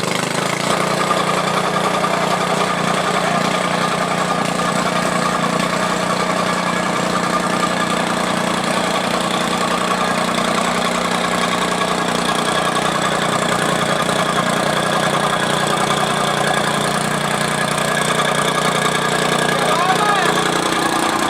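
Tamping rammer (jumping-jack compactor) engine running steadily at a constant pitch.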